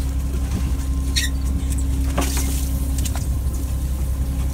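Fishing boat's engine running steadily, a constant low drone with a held hum. A short high squeak comes about a second in, and a brief rushing noise about two seconds in.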